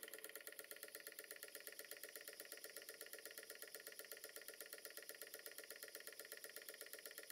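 Small oscillating-cylinder model steam engine running on compressed air, faint, with a rapid, even beat of exhaust puffs at a steady speed.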